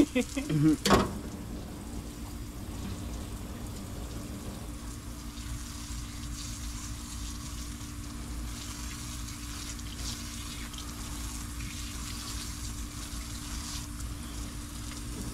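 Running water, a steady hiss that holds at an even level, with a low steady hum underneath. A couple of short knocks sound in the first second or so.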